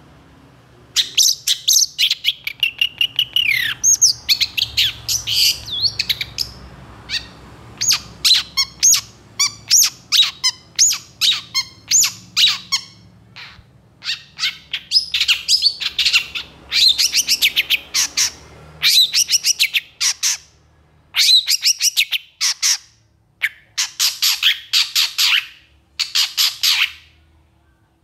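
Long-tailed shrike singing vigorously: rapid runs of short, high, sharp notes in bursts of a few seconds with brief pauses between them, starting about a second in, including a downward-sliding note early in the song.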